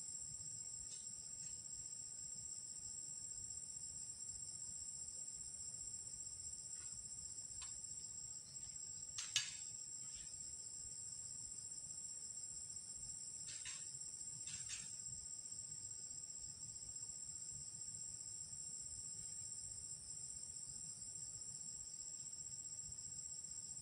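A steady, high-pitched drone of insects, unbroken throughout. A sharp click sounds about nine seconds in, with two fainter clicks a few seconds later.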